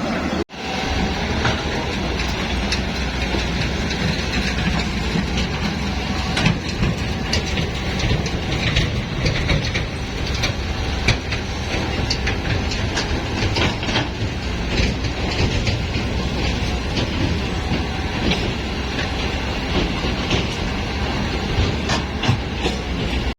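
Heavy construction machinery running: a steady low rumble with frequent irregular metallic clanks and rattles.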